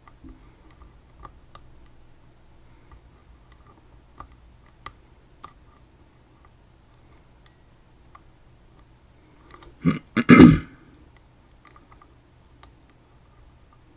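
Faint, scattered clicks of lock picks working inside a ChiLock, a Chinese BiLock-clone lock. About ten seconds in, a short, loud throat noise in two parts, like a throat clear or a burp.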